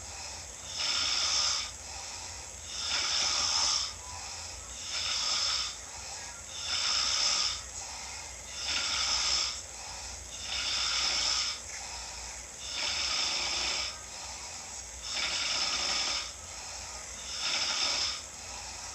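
A person snoring in a steady rhythm: breathy snores about every two seconds, nine or so in a row.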